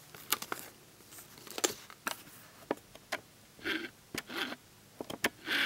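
A small paper booklet being handled and held open in the hand: soft paper rustles and scattered light ticks.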